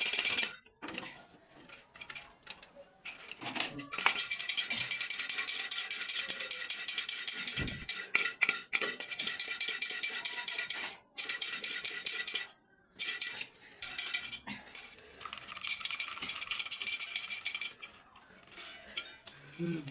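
Popcorn being popped in a metal pot: a dense, crackling rattle of kernels against the metal, broken by a few short pauses.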